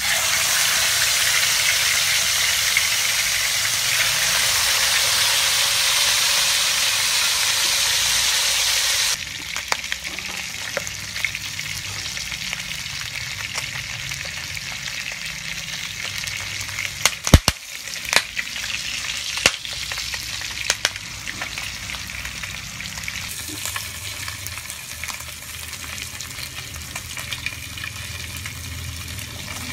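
Fish pieces frying in hot oil in a nonstick pan: a loud, steady sizzle that drops suddenly to a quieter sizzle about nine seconds in, with a few sharp clicks a little past the middle.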